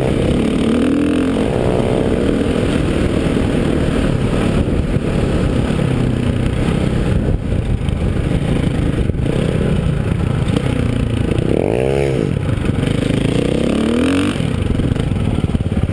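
Dirt bike engine heard from on board, running under changing throttle while riding through sand, its pitch rising and falling. Near the end the revs climb and drop quickly.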